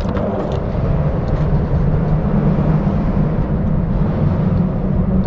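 Steady low rumble of vehicle traffic crossing the bridge overhead, with a few light clicks near the start.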